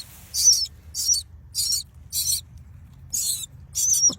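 Nestling birds giving short, high begging calls, about one every half second with a brief pause midway, as they are hand-fed.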